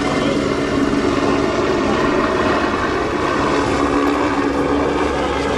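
Aircraft passing overhead, a steady engine and propeller drone holding the same pitch.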